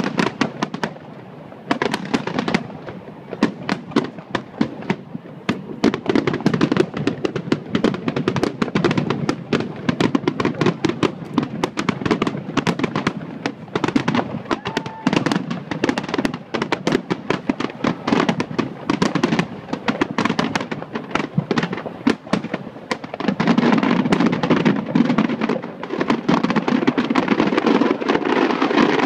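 Aerial fireworks display: a continuous barrage of shell bursts, many sharp bangs a second, growing into a denser unbroken crackle near the end.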